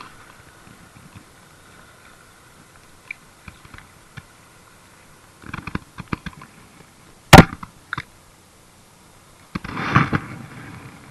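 Handling a freshly caught fish: scattered small clicks, then one sharp, very loud knock close to the microphone a little over seven seconds in. Near the end comes a short burst of rustling as the fish is pushed into a mesh keep bag.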